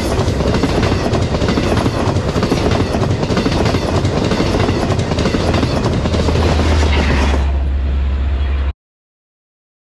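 Bilevel passenger coaches rushing past at speed at close range: a loud rush and rumble with wheel clatter on the rails. The rush thins as the last car goes by near the end, and then the sound cuts off abruptly.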